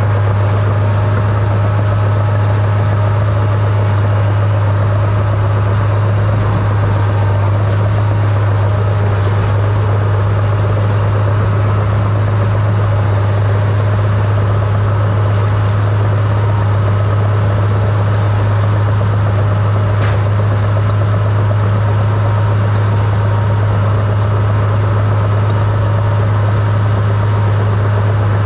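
Small crawler dozer's diesel engine running at a steady speed as the machine pushes snow with its blade, a constant low drone heard close up from the operator's seat.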